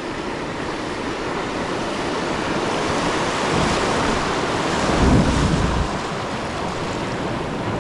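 Water rushing over a low river dam as a kayak runs over it, building steadily, with a heavier low splash about five seconds in as the kayak drops and lands.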